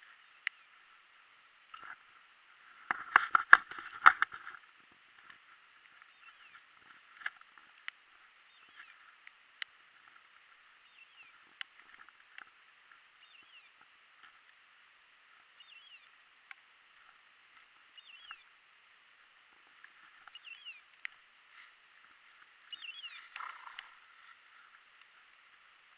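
Brushing and rustling through dry field grass with scattered clicks, over a steady hiss. A loud burst of knocks and rustling comes about three to four seconds in and a smaller one near the end, with a few faint short chirps between.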